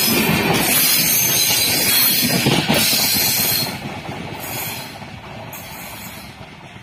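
A passenger express train passing close by, its tail luggage-brake-and-generator car going past with loud rushing wheel and rail noise. About three and a half seconds in the noise drops suddenly and then fades as the train runs away down the track.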